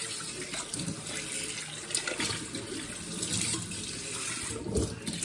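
Tap water running from a kitchen faucet onto a stainless steel bowl being rinsed in a stainless steel sink, splashing steadily, with a few light knocks of the bowl against the sink.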